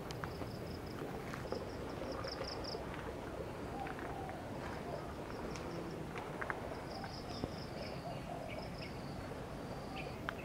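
Insects chirping in short, repeated pulse trains over steady low outdoor background noise, with scattered faint ticks.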